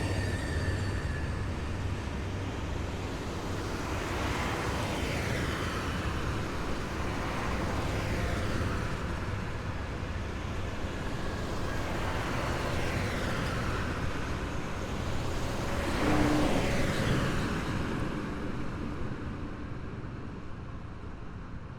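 A column of heavy military vehicles drives past one after another with a deep engine rumble. Each vehicle's noise swells and falls in pitch as it goes by, roughly every four seconds. The loudest pass comes about three-quarters of the way in, and the noise then fades as the column moves off.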